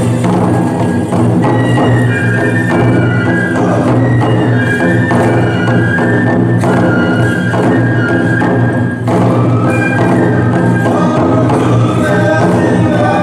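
Live toramai (tiger dance) festival music: taiko drums beating under a high flute melody.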